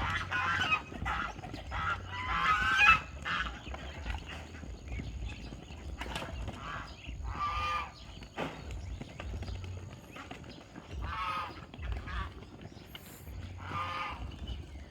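Domestic geese honking: a rapid cluster of calls over the first three seconds, then single honks every few seconds, over a low rumble.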